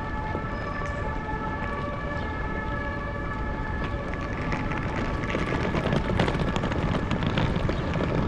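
Outdoor city street noise with a steady whine of several held tones that fades after about four seconds. Louder traffic-like noise with scattered clicks follows.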